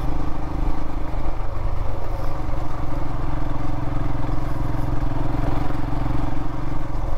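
Royal Enfield Himalayan's single-cylinder engine running at a steady, even speed while the motorcycle is ridden along.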